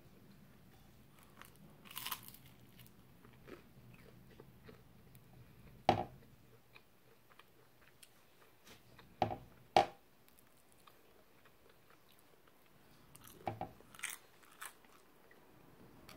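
A person eating toast and runny fried egg: quiet chewing, broken by a handful of sharp, short crunching and biting sounds spread through the stretch.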